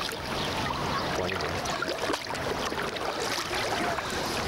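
Sea water splashing and sloshing as a hooked palometa thrashes at the surface close by, in a steady wash of water noise.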